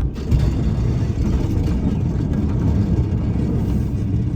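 Snow plow truck running under way: a loud, rough low rumble that comes in abruptly and holds steady.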